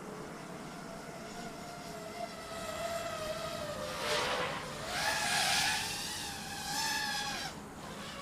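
FPV quadcopter's brushless motors and propellers whining, the pitch falling and rising with the throttle. Stretches of rushing air noise come in around the middle.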